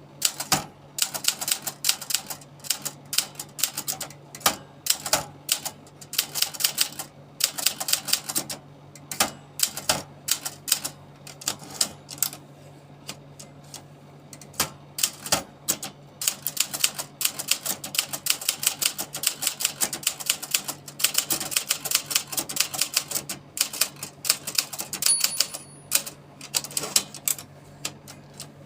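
Olympia Traveller De Luxe portable manual typewriter being typed on: fast runs of sharp key strikes broken by short pauses, with a sparser, slower stretch about halfway through.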